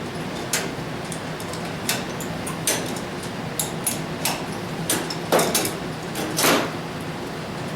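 Scattered metal clinks and knocks of hand tools on the fittings of a chute control cable being unbolted, about eight sharp taps with the loudest near the middle, over a steady hum.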